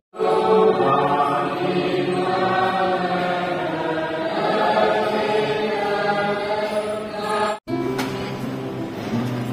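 A congregation singing a hymn together in slow, long-held notes. The singing drops out for an instant near the end and comes back quieter.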